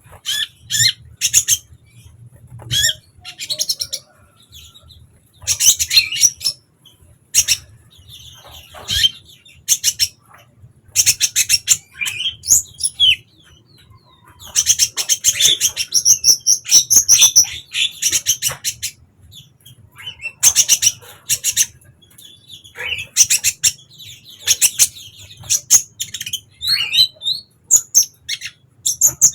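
Kolibri ninja (a sunbird) singing: bursts of high, rapid chirps and trills, repeated with short pauses, over a faint steady low hum.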